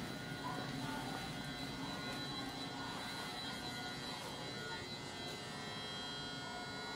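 Steady hum and high whine of a JR 221 series electric train standing at the platform, its onboard equipment running while stopped.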